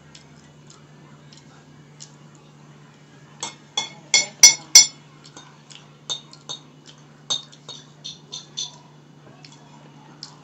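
Metal spoon clinking and scraping against a bowl. There is a quick run of sharp, ringing clinks about four seconds in, then scattered lighter taps, over a faint steady low hum.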